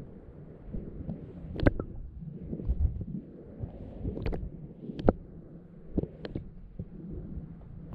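Muffled underwater sound of moving sea water: a steady low rumble with a handful of sharp clicks or knocks at irregular moments.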